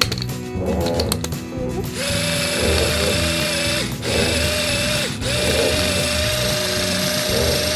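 Small electric garlic chopper's motor running as it grinds garlic and onion. It starts about two seconds in and cuts out briefly twice.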